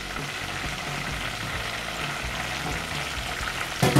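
Minced garlic sizzling steadily as it fries in melted margarine and olive oil in an aluminium pot. There is a single sharp knock just before the end.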